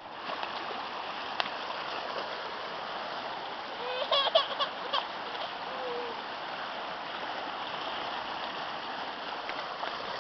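Shallow stream running over rocks, a steady rush of water. About four seconds in, a high voice calls out briefly, likely the young child.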